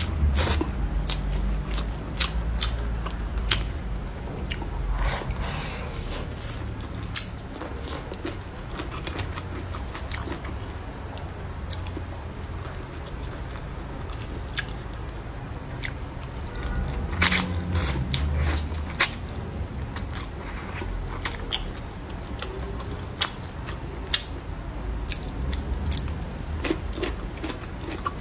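Close-miked eating sounds: sweet potato glass noodles slurped and chewed, with many wet mouth clicks and smacks throughout. Longer slurping stretches come at the start and again a little past halfway.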